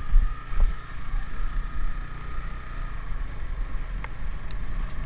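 Motorcycle running while riding, with heavy wind buffeting on the microphone as a gusty low rumble, and a few short clicks near the end.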